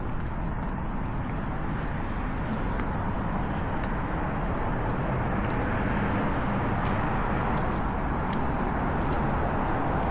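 Steady hum of city traffic.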